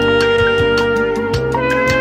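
Light orchestral music: brass and reed instruments hold long melody notes, moving to a higher note about one and a half seconds in, over a bass line and a quick, steady beat of light percussion.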